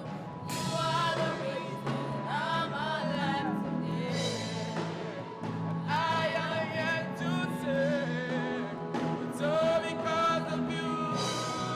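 Background music with a singing voice: sung phrases over a sustained keyboard-like accompaniment, in the style of a gospel song.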